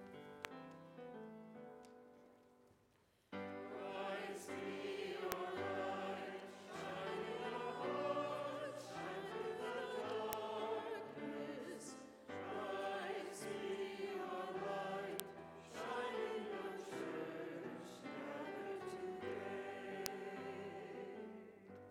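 A church congregation singing the Gospel acclamation with instrumental accompaniment. A few held notes die away first, then the singing comes in about three seconds in and goes on in phrases before fading near the end.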